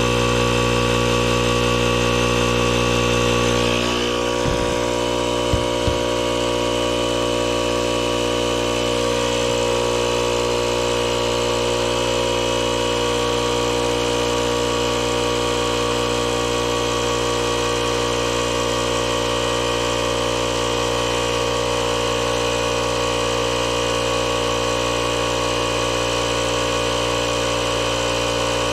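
Air compressor running steadily while inflating a spare tire sealed with fix-a-flat, with a change in its hum about four seconds in and a few short clicks just after.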